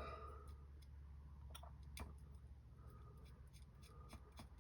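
Faint, scattered clicks and taps of small metal hardware: a quadcopter frame standoff being screwed onto its bolt by hand.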